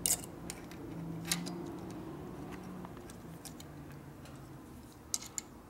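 Light metallic clicks of small ignition parts and hand tools being handled on a points-ignition assembly. There is a sharp click at the start, another about a second in, and a quick pair near the end, over a faint low hum.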